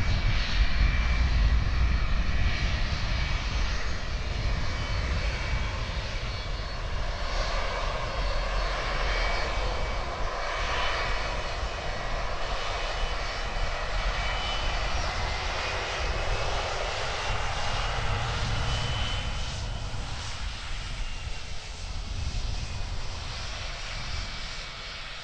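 Airliner engines running as a plane moves past the airfield: a steady low rumble and noisy roar with a faint whine on top, loudest at first and slowly fading.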